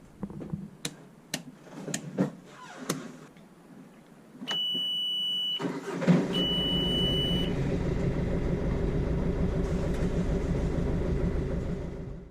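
A few clicks and knocks, then a steady high electronic beep from the engine panel. The sailboat's inboard diesel engine cranks and catches about six seconds in, then idles steadily while the beep sounds again briefly and stops.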